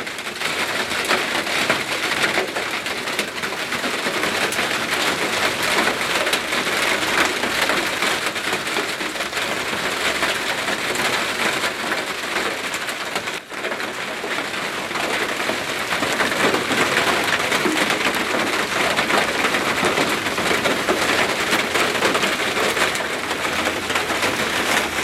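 Hail and rain pelting down hard in a dense, steady clatter of countless small impacts, with one momentary break about halfway through.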